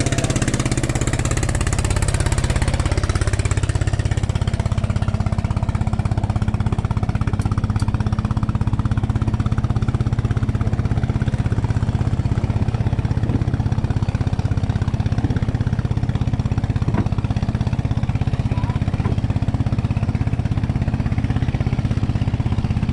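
An engine running steadily at idle: a low, even hum with a fast regular pulse that holds unchanged throughout.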